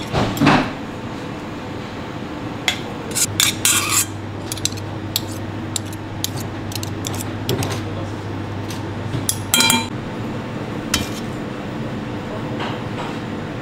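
Metal spoon tapping and scraping against a stainless-steel mixing bowl as food is scooped out, a scattering of light clinks, with one louder clink about ten seconds in that leaves the bowl briefly ringing.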